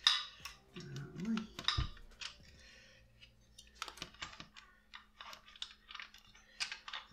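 Irregular small clicks and rustles of plastic and metal model parts being handled as fingers fit the push rod into the rear suspension linkage of a 1/4-scale model motorcycle.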